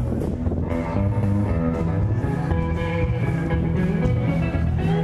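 Guitar-driven rock music with bass and a steady beat.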